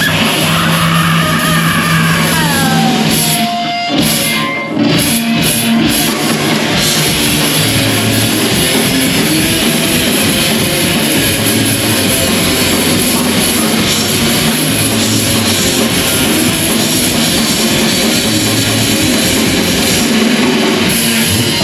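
A live rock band playing loud, with distorted electric guitar and a drum kit. A note slides down in pitch in the first few seconds, and the band plays a few choppy stop-start hits about four seconds in before going back to a full, dense groove.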